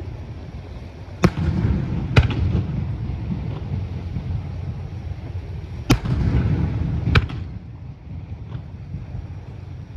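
Aerial fireworks shells bursting: four sharp bangs in two pairs, each with a rolling rumble after it.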